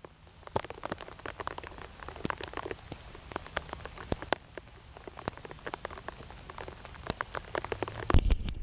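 Rain falling on a GoPro Hero4 Session camera and the ground around it: many irregular sharp ticks of drops striking close to the microphone, several every second. A louder low rumble comes in near the end.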